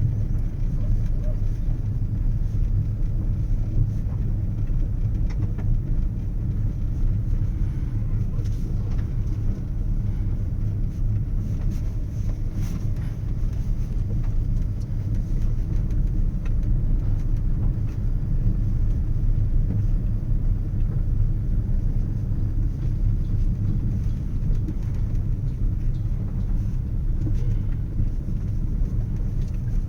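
Steady low rumble of a moving car.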